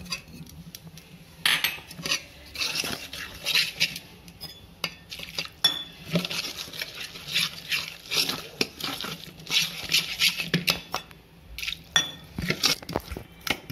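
Steel ladle stirring and scraping against the sides of an aluminium pot, with repeated clinks, as roasted gram flour is mixed into a thick spice paste.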